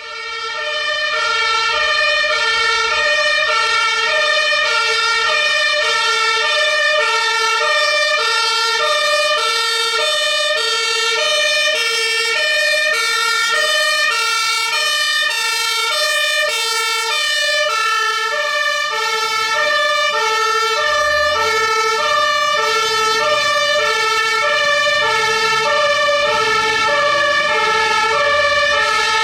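German emergency-vehicle two-tone siren (Martinshorn) sounding continuously, alternating evenly between a low and a high note about every 0.6 seconds. A vehicle engine can be heard accelerating underneath it about two-thirds of the way through.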